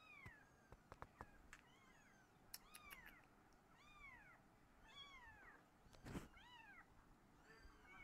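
A very young kitten mewing over and over: thin, high mews that each rise and then fall in pitch, coming about one a second. A few faint clicks sound in the first three seconds, and there is a brief thump about six seconds in.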